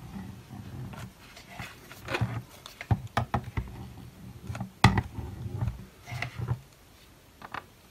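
Irregular clicks and light knocks of handling as a hot glue gun is worked along the seam between two 3D-printed plastic parts resting on a wooden table, with a sharper click about five seconds in.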